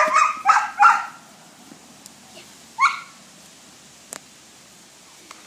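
Standard poodle puppies barking: four short yaps in quick succession in the first second, then one more about three seconds in.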